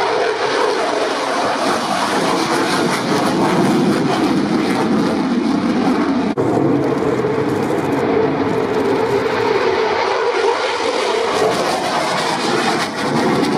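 Loud, steady jet noise of a Eurofighter Typhoon's twin engines as it flies low past the crowd, with a brief break about six seconds in.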